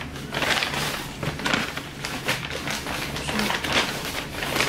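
Handling of a cardboard box and its packaging: an irregular run of rustling, light taps and knocks.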